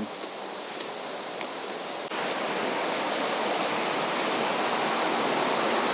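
Steady rush of fast-flowing stream water over rocks, which gets suddenly louder about two seconds in and then holds.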